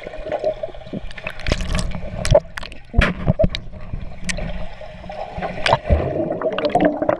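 Pool water gurgling and sloshing, heard underwater through a GoPro's waterproof housing, with many scattered sharp clicks and knocks.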